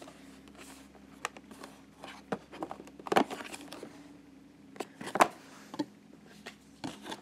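Fingers handling a printed cardboard advent calendar: scattered light taps, clicks and rustles of card as its small doors and panels are pressed and flipped, the sharpest tap about five seconds in. A faint steady hum lies underneath.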